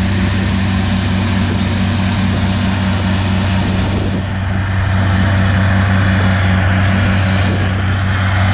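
Oliver tractor engine running steadily, getting a little louder from about five seconds in as the tractor pulls away with the weight sled behind it.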